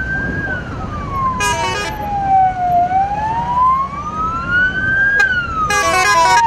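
A vehicle siren wailing, its pitch sliding slowly down and up about every five seconds. Two short horn blasts cut in, one about a second and a half in and one near the end, over the low rumble of vehicle engines.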